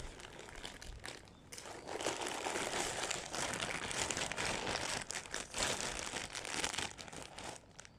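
Packaging crinkling and rustling as a squishy is taken out and unwrapped: a dense run of crackles, softer for a moment about a second in, then steady until it dies down near the end.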